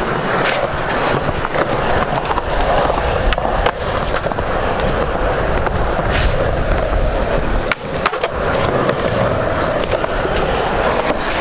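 Skateboard wheels rolling on smooth concrete, a steady rumbling rush, with a few sharp knocks at about four, six and eight seconds in.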